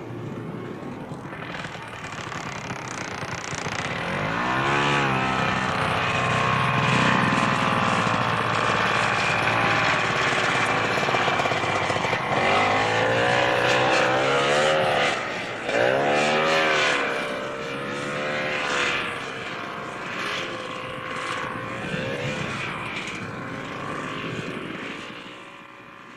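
ATV engine revving off-road, its pitch rising and falling in several surges. It grows louder toward the middle and fades away near the end.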